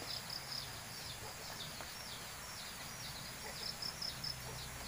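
A small bird chirping over and over in short, high, falling notes, a couple a second, against a steady outdoor hiss.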